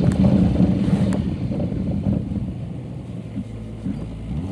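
Strong wind buffeting the phone's microphone in a low rumble, easing off toward the end.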